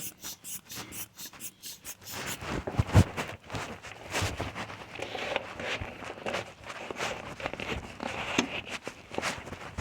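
Metal tool scraping and clicking at a door knob while the lock is being bypassed, with a sharp knock about three seconds in and another near the end.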